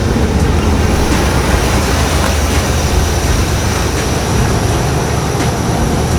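Box Chevy being driven: steady engine and road rumble with no clear rev changes.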